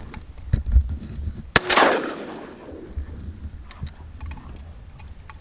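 A single shotgun shot about a second and a half in, fired at a duck that has just flushed, its report trailing off over about a second. A low thump comes just before it.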